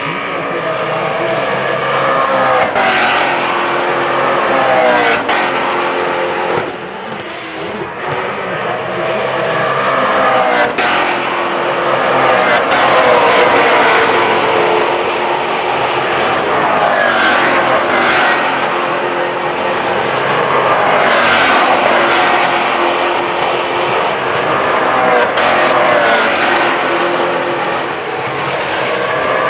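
A field of Maserati GranTurismo MC Trofeo race cars, V8 engines, passing one after another at speed, each engine note rising and falling as it goes by.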